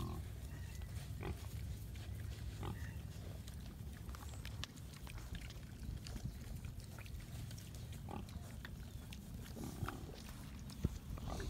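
Piglets grunting now and then while rooting in grass and dirt, short grunts every second or two over a steady low rumble.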